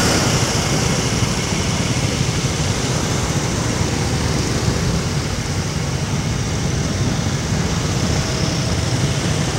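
Steady road-traffic noise from motor scooters and cars in slow, congested traffic, with a low engine hum underneath.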